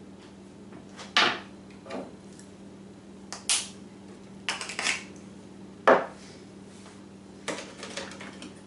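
A spice jar and measuring spoon being handled, with jars set down on the counter: a string of short, separate clinks and knocks. One sharp knock comes about a second in, and the loudest comes about six seconds in.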